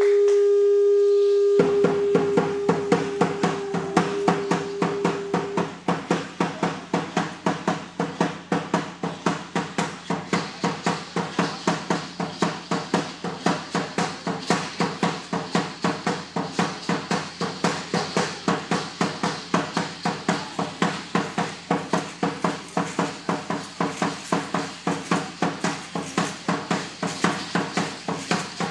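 A conch shell trumpet blown in one long steady note, which stops about five seconds in. About a second and a half in, a large drum starts a steady beat of about three strokes a second that keeps going for the Aztec danza.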